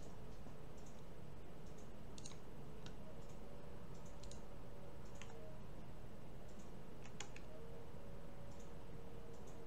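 Computer mouse clicking, about a dozen short, irregular clicks with a quick double click about seven seconds in, over a steady low background hiss and hum.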